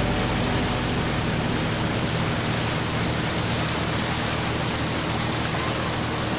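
Steady rushing noise of a moving river boat, wind and water over a low engine drone.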